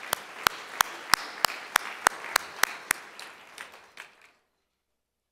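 Audience applause, with one person's loud, even claps close to the microphone about three a second. The applause fades away about four seconds in.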